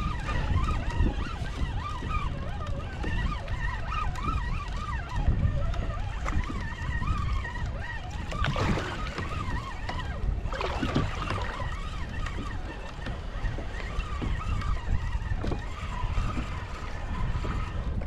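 Wind rumbling on the microphone over water sloshing against a plastic sit-on-top fishing kayak's hull, with a couple of louder swells of water about halfway through.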